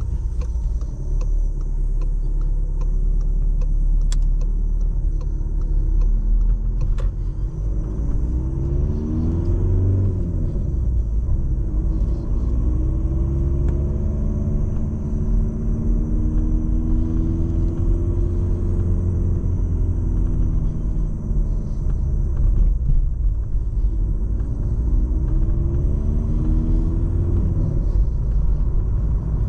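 Volkswagen Golf VII 1.6 TDI four-cylinder turbodiesel driving on the road: a steady low rumble of engine and road noise. The engine note rises and falls several times as the car speeds up and eases off.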